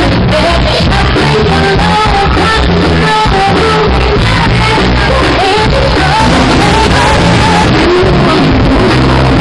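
A rock band playing live with a woman singing over electric guitar, bass and drums, a loud and rough recording.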